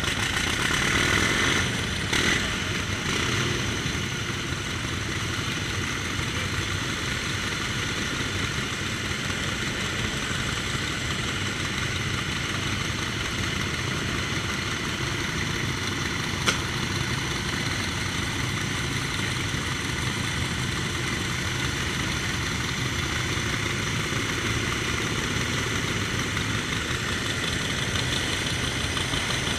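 Antique motorcycle engines idling steadily, a little louder in the first couple of seconds. A single sharp click is heard about halfway through.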